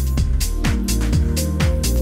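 Electronic background music with a steady beat: low kick drums about twice a second, crisp percussion and held bass notes.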